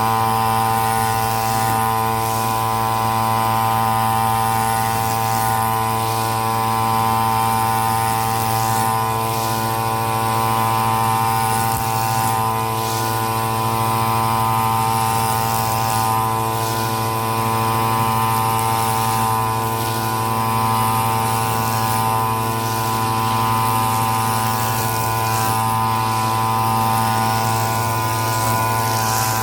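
Petrol brush cutter's small engine running steadily at high speed, its pitch holding even while it cuts grass.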